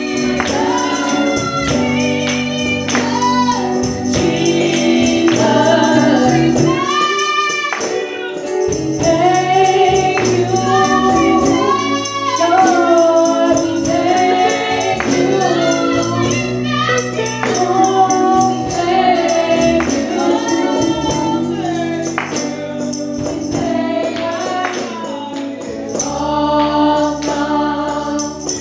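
Gospel singing by a group of voices with a tambourine keeping the beat over sustained low instrumental notes.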